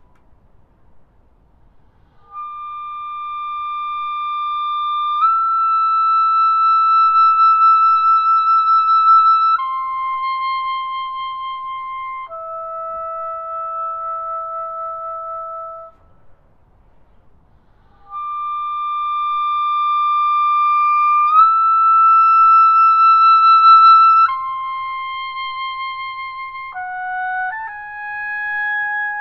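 Unaccompanied oboe playing slow, long held notes that swell louder, with short rests between phrases. Near the end the notes move more quickly.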